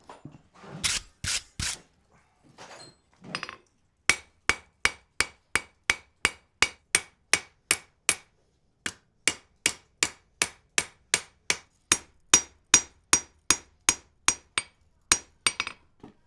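Blacksmith's hand hammer forging wrought iron on an anvil: a few duller blows, then a long steady run of sharp ringing strikes, about three a second, with one short pause midway.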